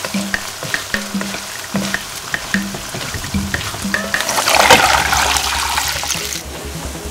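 Chili paste and fermented rice frying in oil in a wok, with a wooden spatula stirring. Past the middle, water poured into the hot pan sets off a loud surge of hissing and splashing for about two seconds, which then settles to a quieter bubbling.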